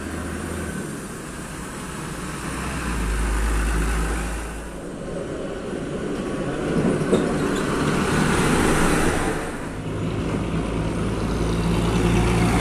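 Diesel trucks passing one after another on a road, the engine drone and tyre noise swelling three times as each goes by, over steady traffic noise.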